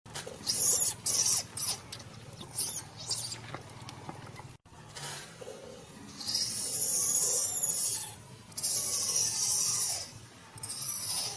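Newborn macaque squealing in high-pitched cries: a few short squeaks in the first three seconds, then long drawn-out screeches from about six seconds in.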